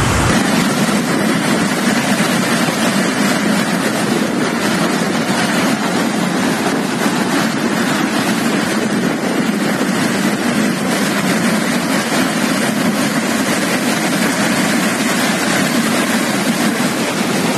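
Floodwater of a river in flash flood rushing past in a torrent: a loud, steady roar that does not let up.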